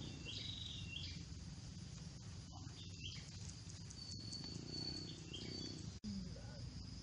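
Rural outdoor ambience: a few short, high bird chirps and whistles over a steady insect drone and a low background rumble. The sound cuts out for an instant about six seconds in.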